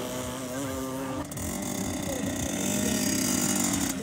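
Small two-stroke engines of children's mini motocross bikes running. The pitch rises and falls over the first second or so, then one engine runs at a steady pitch.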